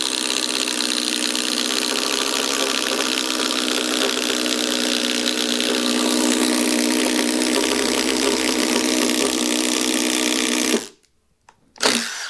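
Milwaukee M18 Fuel Gen 3 impact driver boring a 1-3/8 in self-feeding spade bit into a wood beam under heavy load, running steadily for about eleven seconds before it stops suddenly. A short knock follows near the end.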